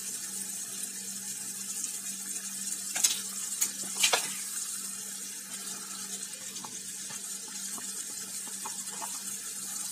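Prawn curry in coconut milk sizzling steadily in a frying pan. A wooden spatula knocks against the pan a few times, about three and four seconds in.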